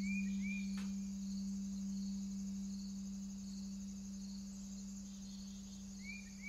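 Soft ambient background track: a steady low drone with cricket-like chirping over it, groups of three short chirps at the start and again near the end, the whole slowly fading out.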